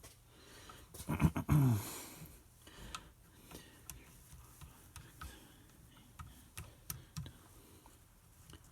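Small metal clicks and taps of cam cover screws and a screwdriver being handled, with a louder clatter and a short falling tone about a second in.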